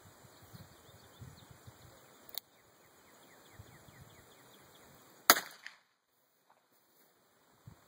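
A single gunshot from a Taurus Tracker 990 nine-shot .22 LR revolver, a sharp crack with a short tail about five seconds in. A fainter sharp click comes about two and a half seconds in.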